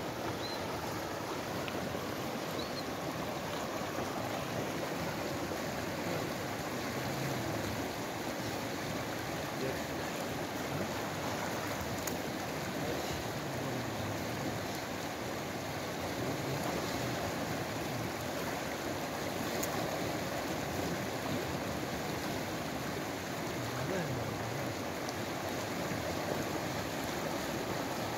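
A fast-flowing river running steadily, a constant rush of water with no separate events.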